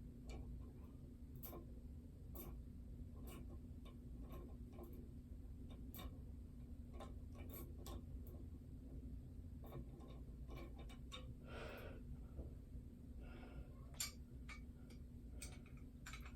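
Faint, irregular clicks and taps, like small hardware being handled, over a steady low hum, with a brief rustle about two-thirds of the way through.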